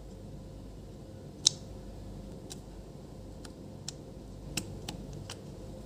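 A blade scraping on a TV panel's circuit board as the shorted CKV line trace is cut: a few small sharp ticks and clicks at irregular moments, the loudest about a second and a half in.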